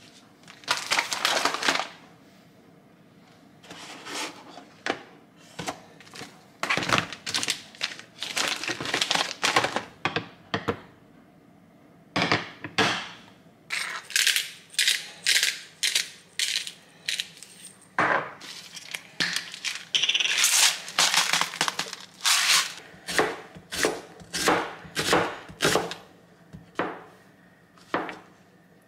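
Kitchen clatter: dishes, utensils and containers being handled and set down, an irregular string of sharp clinks and knocks.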